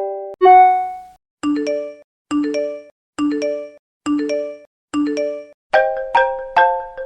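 iPhone alert and ringtone sounds played one after another: a chiming ringtone cuts off, a single bell-like ding rings and fades, then a short two-note rising chime repeats five times at even spacing, and a fast run of bright mallet-like notes from the next ringtone starts near the end.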